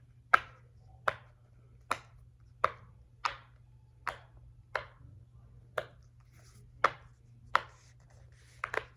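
Silicone pop-it fidget toy's bubbles being pressed one at a time: a sharp pop about every three-quarters of a second, about a dozen in all, with a quick double pop near the end.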